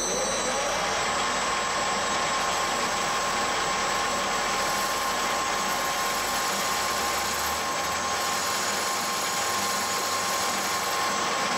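Small metal lathe running at 500 RPM, its motor reaching speed in the first half second and then holding a steady whine, as a rear-mounted parting blade is hand-fed into the spinning metal bar.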